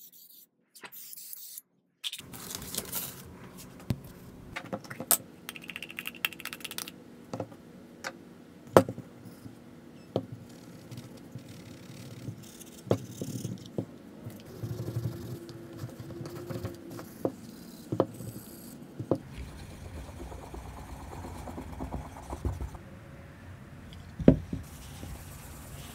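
Small wooden box pieces being handled on a cloth-covered workbench: scattered sharp clicks and knocks of wood set down and touching wood, over the rustle of a rag rubbing the wood.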